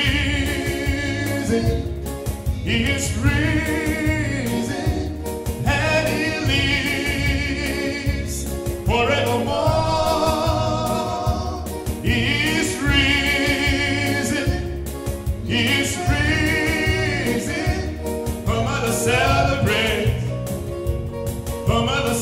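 A man singing a gospel song into a handheld microphone, holding notes with vibrato, over instrumental backing with a steady low beat.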